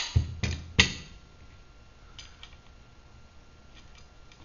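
Hardware being handled on a worktable: a bolt, nut, caster wheel and aluminum wheel plate knocking and clicking. There are three sharp knocks within the first second, then only a few faint ticks.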